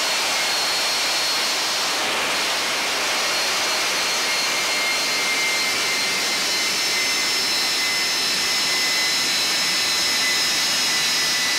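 Turbojet engine running steadily at power, heard close to its compressor case. A loud, even rush of air with several steady high whine tones from the compressor.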